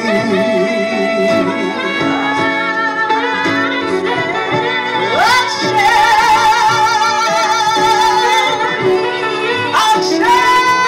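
Woman belting a sustained vocal ad-lib in a live song performance. About halfway through she slides up into a long high note with wide vibrato, then slides up again near the end.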